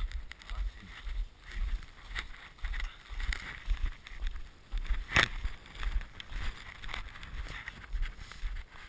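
Dog sled sliding over snow behind a husky team, making irregular low thumps and knocks as it jolts along, with one sharp knock about five seconds in.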